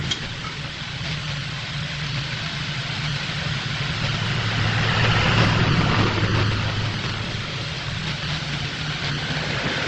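Large belt-driven wood lathe running with a vase blank spinning, a steady motor hum, with the hiss of a turning tool cutting the wood that grows louder about four to six seconds in.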